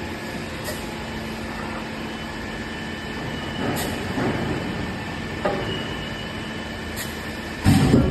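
Horizontal split-die flat forging machine running with a steady mechanical hum and a few light knocks, then a sudden loud heavy clatter near the end.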